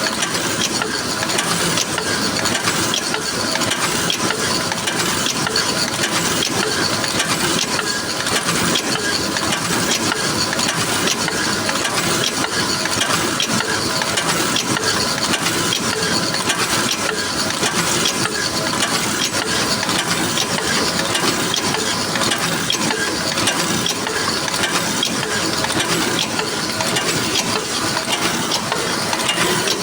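Paper cup making machine running steadily, a continuous fast mechanical clatter.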